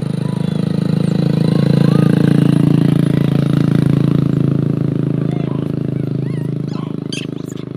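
A motor vehicle's engine drones as it passes close by, growing louder over the first couple of seconds and then slowly fading. A few short, high chirps come in near the end.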